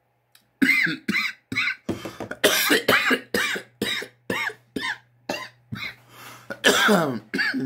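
A man coughing in a long fit after a bong hit of smoke: more than a dozen short coughs, two to three a second, ending in one longer cough that falls in pitch.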